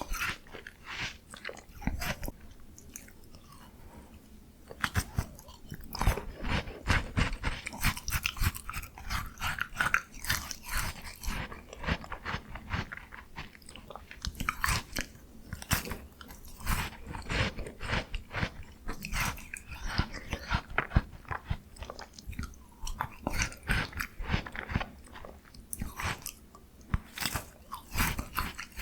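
Close-miked biting and chewing of a frozen miniature Jaws Bar ice cream bar: a dense run of sharp, irregular crunches with wet chewing between them.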